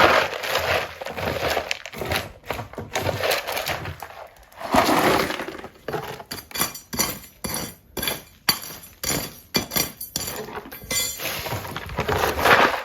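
Concrete and rubble being broken up and dug out with metal hand tools: a string of irregular clinking, crunching strikes with short scraping bursts between them.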